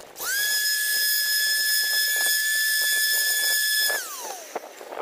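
Electric orbital sander on a damaged boat hull, its motor whine rising as it is switched on, holding a steady high pitch for about four seconds, then winding down as it is switched off.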